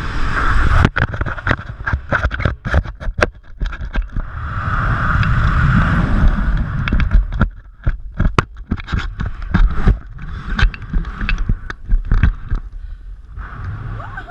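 Wind buffeting a GoPro Hero3's microphone as a bungee jumper drops and rebounds on the cord: a heavy low rumble broken by many sharp knocks and thumps.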